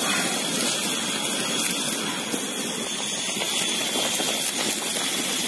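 A wok of catfish in spiced broth boiling hard over a wood fire: a steady rushing hiss.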